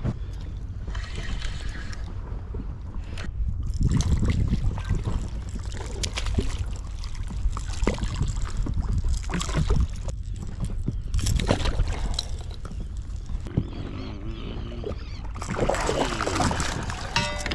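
Water sloshing against an inflatable boat's side with wind buffeting the microphone, over scattered clicks and knocks of a spinning reel and rod being handled as a barracuda is reeled to the boat. The splashing and handling noise grows busier near the end.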